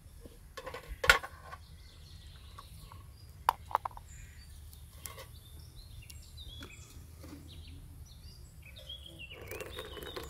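Metal kettles and teapot knocking on a stone hearth, with one loud clank about a second in and two sharp clinks a few seconds later. Small birds chirp throughout. Near the end, tea pours from a teapot into glass cups.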